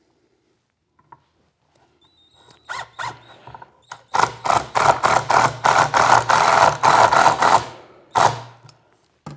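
Cordless impact driver driving screws into wood, with rapid pulsing hammering over the motor's hum. A short burst comes about three seconds in, then a longer run of about three and a half seconds, and one brief final burst near the end.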